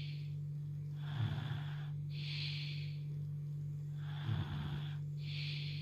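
Small child snoring in sleep. Twice, about three seconds apart, a rough low snore lasting about a second is followed by a breathy hiss, with a steady low hum underneath.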